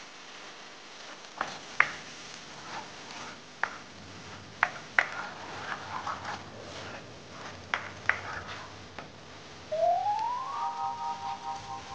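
Plastic spoon clicking and scraping against a nonstick pan while stirring a thick, pasty peanut sauce, in scattered sharp knocks. Near the end, as water is poured in, a tone rises and then holds steady with a light pulsing.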